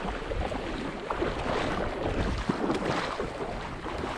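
Calm sea water lapping and sloshing around a wading angler's legs in small irregular splashes, with wind gusting on the microphone.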